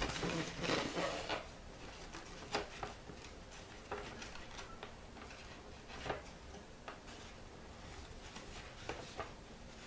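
Paper rustling and light finger taps as a folded paper triangle is pressed and glued onto the side of a paper-covered box, with a denser rustle in the first second or so, then a few scattered single clicks.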